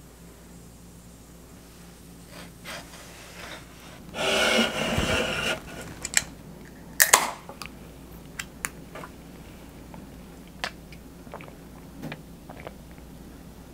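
Tabletop handling sounds as a beer can and dishes are set down: a louder burst of noise lasting over a second about four seconds in, a sharp click about seven seconds in, then scattered light taps and ticks.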